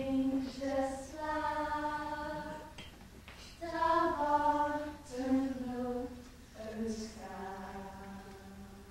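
Unaccompanied singing in slow phrases of long held notes, with no instruments heard; the last note is held and fades near the end.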